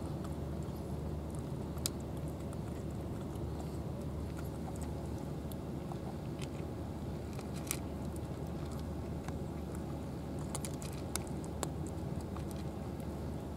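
Two cats eating dry cat food, crunching the kibble in irregular sharp clicks over a steady low background rumble.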